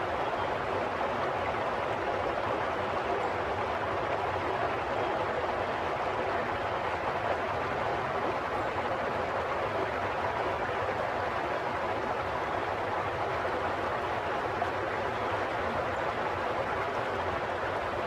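Steady sound of running water, an even noise with no breaks or changes in level.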